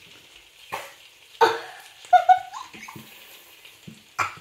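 A nearly empty plastic squeeze bottle of tomato ketchup being squeezed, sputtering out the last sauce and air in a few short, squeaky blurts.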